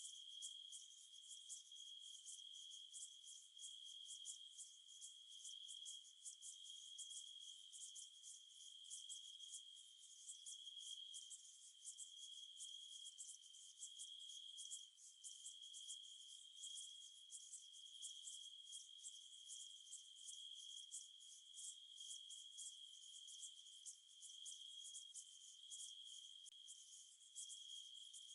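Near silence: a faint, steady high-pitched whine with fast, even ticking above it.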